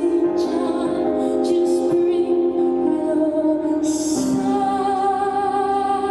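A woman singing a slow song with long held notes over sustained instrumental accompaniment.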